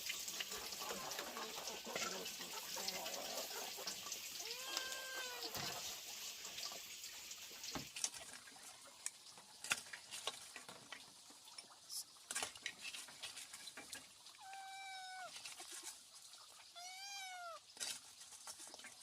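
A cat meowing three times, each meow rising then falling in pitch, with scattered light clicks and knocks. A steady hiss in the first part stops abruptly about eight seconds in.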